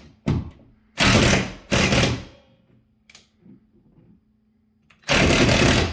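Handheld power drill-driver running in three short bursts, the last the longest, with a click just after the start.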